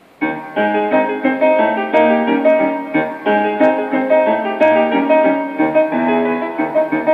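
Piano music playing from the speaker of a restored 1946 Sonora tube radio, starting a fraction of a second in after the dial has been turned off a talk station onto a new one.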